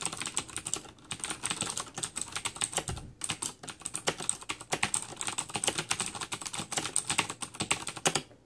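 Fast continuous typing on a Razer BlackWidow Ultimate mechanical keyboard with clicky switches (Cherry MX Blue or Kailh Green), many sharp key clicks in quick succession, with a brief pause about three seconds in. The typing stops abruptly near the end.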